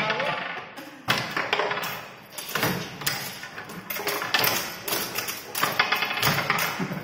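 Foosball being played: the ball struck by the plastic players and the steel rods knocking against the table, several sharp knocks a second or so apart.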